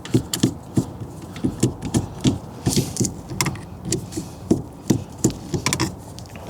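Small irregular clicks, taps and rattles of a screwdriver and loose screws working on the steering column assembly while its Phillips screws are backed out, a few sharp clicks a second.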